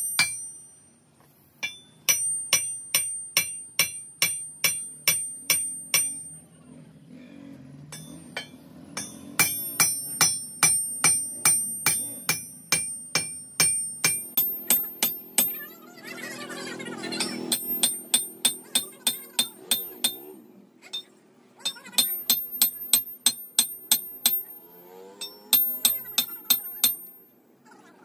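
Hammer blows on a steel crankshaft stood on end, each blow giving a sharp, high metallic ring. The blows come in runs of about three a second, with short pauses between runs.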